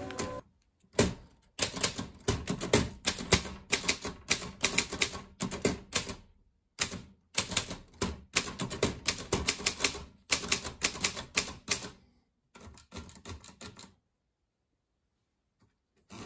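Typewriter keys striking the paper in fast runs of sharp clicks, broken by short pauses between words, with a fainter stretch of clicks near the end before the typing stops.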